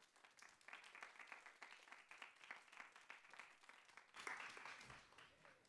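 Audience applauding, a dense patter of many hands clapping. It swells again about four seconds in and fades near the end.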